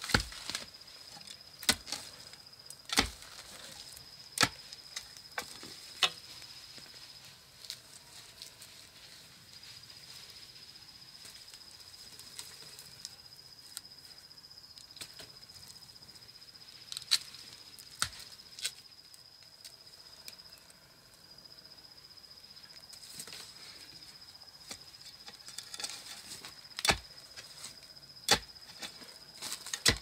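A metal hoe blade chopping into dry, clumpy soil in irregular strokes, with a pause in the middle and more strokes near the end. A steady high insect trill runs underneath.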